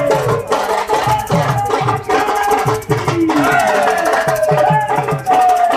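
Loud music: a quick, steady drum beat with a wavering, gliding melody over it.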